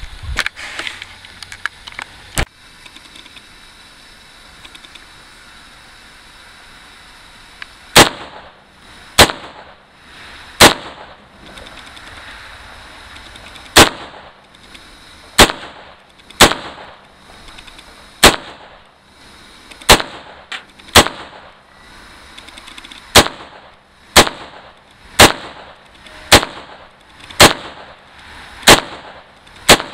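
AR-15 rifle in 5.56 fired in slow semi-automatic: about sixteen shots, one to three seconds apart, starting about eight seconds in. Before them come a few soft knocks of the camera being handled, then a quiet stretch.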